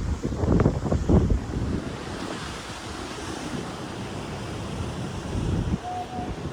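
Ocean surf washing steadily, with wind buffeting the microphone in heavy gusts during the first second or so.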